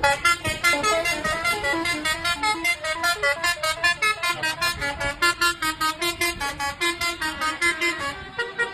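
Bus 'telolet' horn, a set of musical trumpet horns sounded in sequence, playing a fast tune of short notes that step up and down in pitch, about four or five notes a second.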